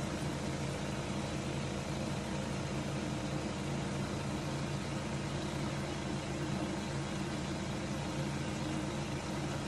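Steady low machine hum with a constant hiss over it, holding unchanged throughout.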